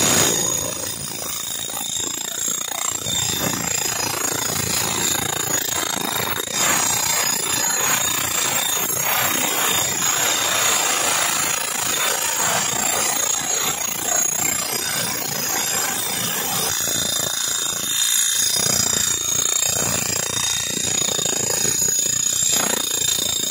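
Handheld electric power tool running continuously on the rail fastenings: a steady rattling whir with a thin high whine, easing briefly about three quarters of the way through.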